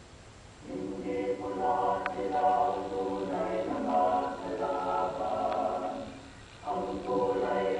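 Mixed a cappella choir singing; the voices come in after a short pause just under a second in, break off briefly near the end, and start again.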